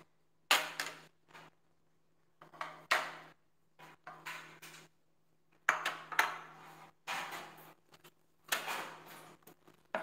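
Dishes being set down and moved about on a plastic serving tray: a glass tumbler and small bowls knocking and clattering, about half a dozen separate knocks, over a faint steady low hum.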